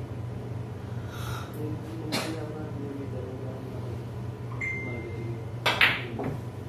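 Pool shot: the cue tip strikes the cue ball, and a moment later the cue ball clacks into an object ball, two sharp clicks close together near the end. A steady hum and faint murmuring voices run underneath.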